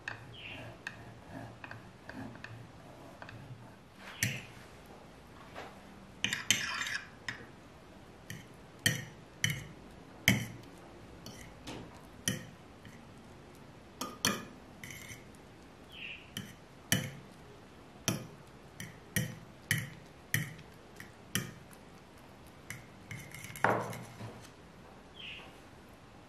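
A fork clinks and scrapes against a white dish, striking about once a second while cheese is stirred into beaten eggs. Before that comes the rasp of a block of cheese on a stainless-steel hand grater.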